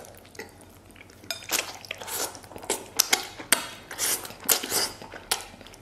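Close-up eating sounds of a person sucking and chewing braised pig's trotter: wet smacks, sucking and slurping, with many sharp irregular clicks.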